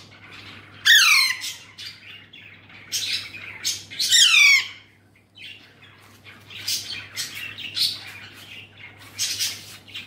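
Alexandrine parakeet chick squawking: two loud calls that fall steeply in pitch, about a second in and around four seconds in, with shorter squawks between and after. These are the begging calls of a hand-fed chick at a syringe feeding.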